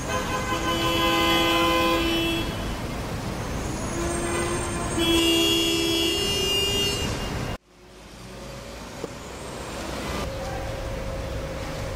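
Tram horn sounded in two long blasts over street noise, the second blast longer with a second pitch joining it. The sound cuts off abruptly about seven and a half seconds in, leaving quieter street noise.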